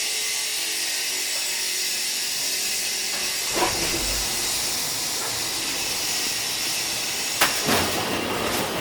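Industrial heat-treatment furnace with water quench running with a steady, loud hiss. A deep knock comes about three and a half seconds in, and a sharp clank with a short swell near the end.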